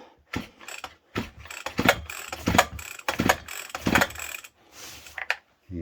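Stihl FS40 strimmer's recoil starter pulled several times in quick succession, the ratcheting starter and the engine turning over without firing; it is being cranked to check for spark, and none is seen.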